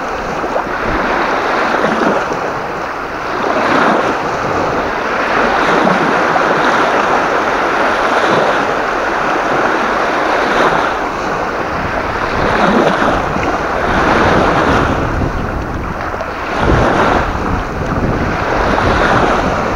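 Strong gusty wind blowing across the microphone: a loud rushing that swells and eases every few seconds.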